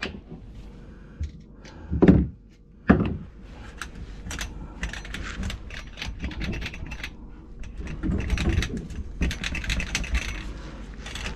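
Knocking and rattling clatter of drain-clearing work under a kitchen sink: two loud thumps about two and three seconds in, then a run of quick clicks and rattles.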